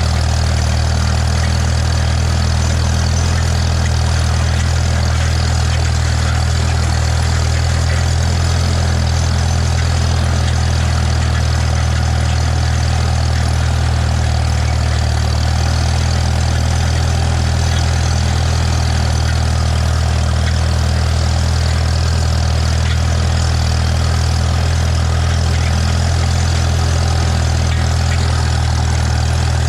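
Farmall M tractor's four-cylinder engine running at a steady speed, a low, even drone that holds the same pitch throughout.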